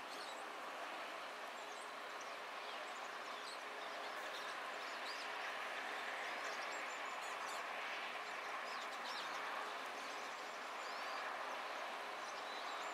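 A steady rush of bridge traffic noise, with many short, thin, high chirps of small songbirds calling scattered throughout.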